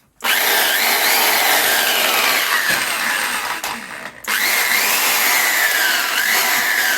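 Black & Decker electric drill running at full speed, with a whine that glides down in pitch several times. It stops about four seconds in and starts up again a moment later.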